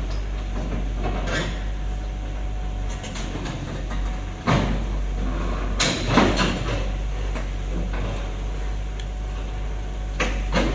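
Excavator engine running steadily as the machine is unloaded from a lowboy trailer, with several sharp metallic clanks from the boom and steel on the trailer deck, the loudest about six seconds in.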